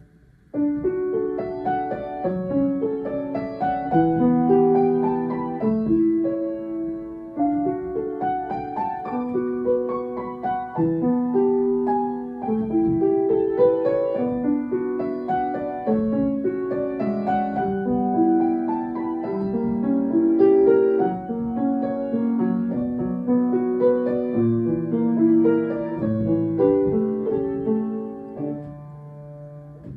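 Solo piano playing a melody over chords, starting about half a second in and closing on a low held chord that fades out.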